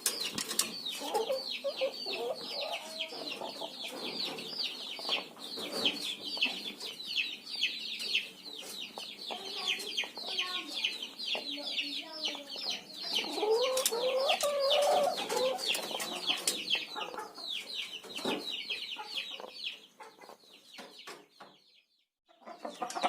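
Chicken clucking now and then, over a busy, rapid high chirping that fades out near the end, followed by a brief near silence.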